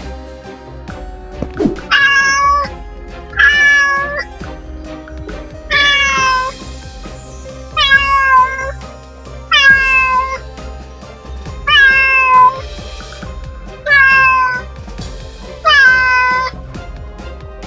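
A cat meowing eight times, each meow about half a second long and roughly two seconds apart, over background music.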